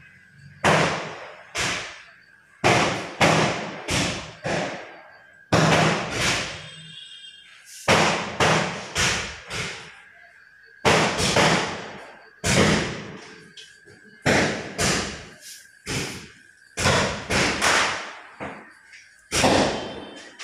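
Firecrackers going off one after another: sharp bangs that each fade quickly, irregularly spaced and at times several a second, about thirty in all.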